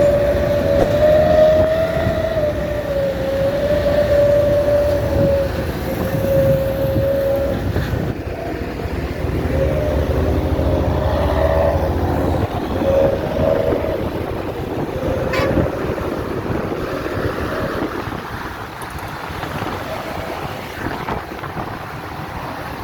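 A bus's basuri musical horn playing a wavering tune of long held notes over engine and road rumble. The tune breaks off about seven seconds in, returns from about nine to sixteen seconds with lower tones sounding beneath it, then stops, leaving the road rumble.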